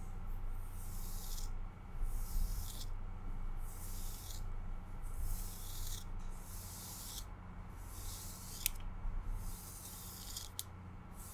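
Long acrylic nails brushing and scratching through the fibres of a fluffy white duster close to the microphone, in slow repeated strokes of soft hiss about every second and a half. Two sharp clicks come near the end.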